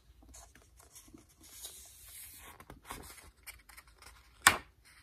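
Faint rustling and small clicks as a large picture book is held up and shifted in the hands, with one sharp click near the end.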